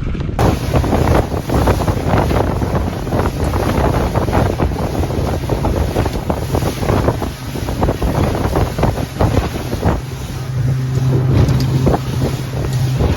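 Wind buffeting the microphone on a fishing boat out on the water, over the rumble of the boat's motor and water washing past the hull. A steady low engine hum comes up clearly about ten seconds in.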